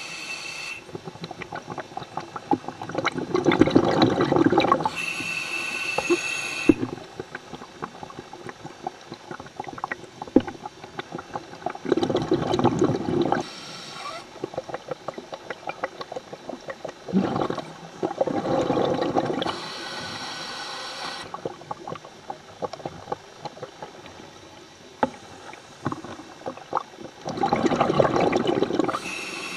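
Scuba diver breathing through a regulator: four slow breaths, each a bubbling rush of exhaled bubbles followed by a hissing inhale with a faint whistle.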